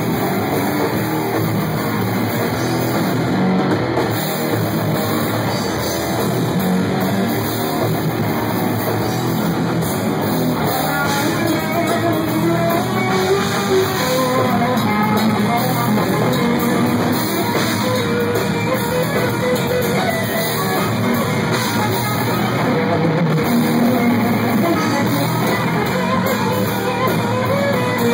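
Live rock band in an instrumental passage: loud electric guitars, bass guitar and drum kit playing together without vocals.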